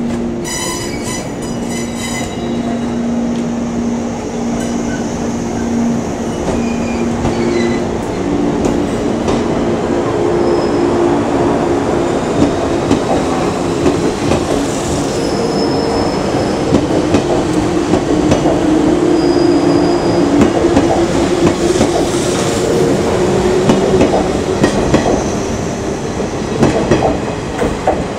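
Electric train pulling out of the platform and passing close by: a low motor hum that rises in pitch as it gathers speed, over the rumble of the cars, with wheels clacking over rail joints and squealing.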